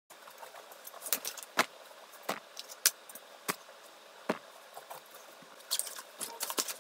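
Small hard items such as plastic memory-card cases and a compact camera set down one by one on a bed, giving about six separate sharp clicks. Near the end comes a busier clatter as a black bag is handled and packed, its metal fittings jingling.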